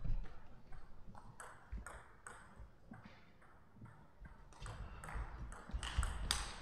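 A table tennis ball in play: a quick run of sharp clicks as it bounces on the table and comes off the rubber-faced paddles in a rally. Heavier low thuds come near the end.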